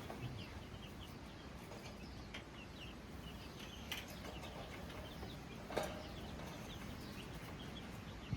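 A brood of baby chicks cheeping, a steady scatter of short high peeps, with a few sharp knocks now and then.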